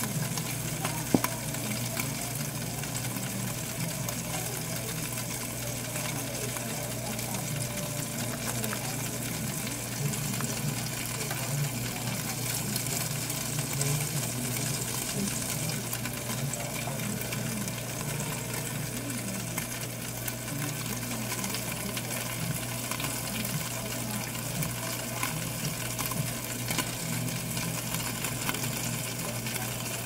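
Toaster oven running with a steady hum and hiss while cheese melts and faintly sizzles on its tray inside; a sharp click about a second in.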